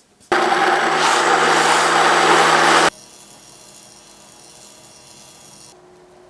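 Electric blender running, most likely pureeing sweet pumpkin soup: a loud, steady motor noise that starts and stops abruptly and lasts about two and a half seconds, followed by a faint steady hiss.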